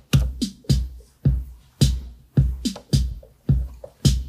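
Roland TR-606 Drumatix analog drum machine playing a programmed pattern: a kick drum on every beat, a little under two a second, each with a falling pitch, joined by snare hits. The machine is working again after a power supply repair.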